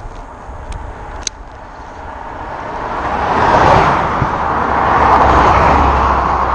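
A road vehicle passing: engine and tyre noise swelling to a peak about four seconds in and staying loud to the end. There is a single sharp click about a second in.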